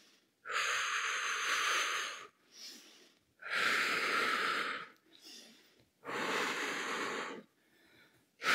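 A woman breathing out hard through her mouth in slow, deliberate recovery breaths after intense exercise. There are three long exhalations of about a second and a half each, short faint inhalations between them, and a fourth exhalation starting at the end.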